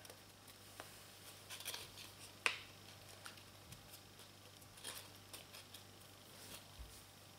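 Faint rustling and crinkling of folded origami paper being pressed and shaped by hand, with a few light clicks, the sharpest about two and a half seconds in. A low steady hum runs underneath.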